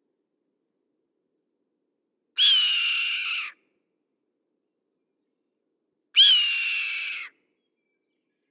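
Red-tailed hawk giving two hoarse, raspy screams a few seconds apart. Each lasts about a second and drops in pitch at the start.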